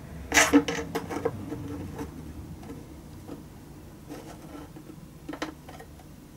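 Soundpost setter and wooden soundpost clicking and scraping inside the violin's body as the soundpost is set through the f-hole. A quick cluster of small clicks comes in the first second or so, then a few scattered single clicks.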